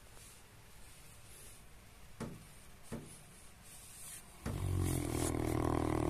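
Sleeping dog breathing quietly, with two small clicks, then a loud, long snore on one steady pitch starting about four and a half seconds in.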